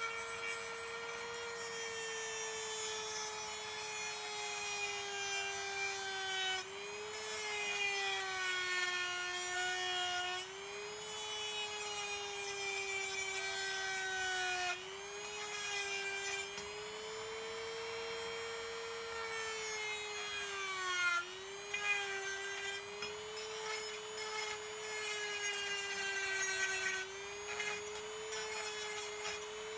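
Handheld rotary tool with a sanding drum running at high speed and grinding the metal body of a 1/32 scale model car, with a scraping rub against the metal. Its steady whine sags in pitch several times as the drum is pressed into the metal, then recovers.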